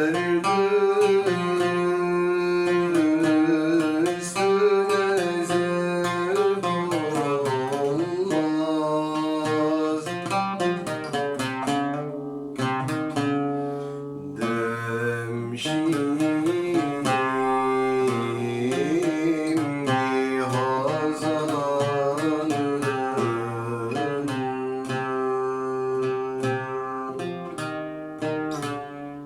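A solo voice singing a Turkish art song in the Uşşak makam, with wavering, ornamented melodic lines, accompanied by a plucked string instrument.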